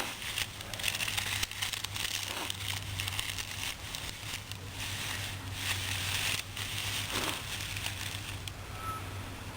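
Long breaths blown into a dried-grass tinder bundle holding a hand-drill coal, coming as a few separate hissing puffs with crinkling of the dry grass, in an attempt that fails because the grass is too coarse.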